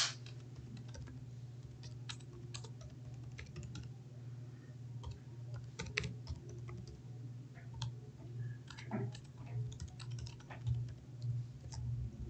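Typing on a computer keyboard: irregular key clicks, with a steady low hum underneath.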